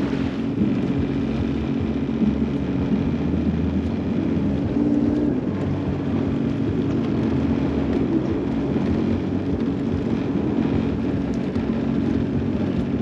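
Sea-Doo GTX 170 personal watercraft's three-cylinder Rotax engine running steadily at slow, no-wake speed: an even, low drone.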